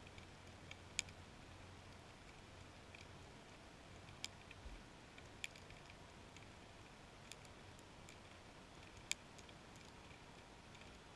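Faint underwater ambience: a steady hiss broken by about five sharp clicks at irregular gaps, with fainter ticking between them.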